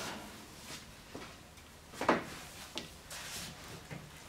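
A few short clunks and clicks of parts and tools being handled on the engine, the sharpest knock about two seconds in; the engine is not running.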